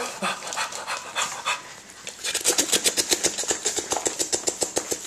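A Boston Terrier panting right at the microphone: faint and uneven at first, then about two seconds in, quick loud breaths at about seven a second.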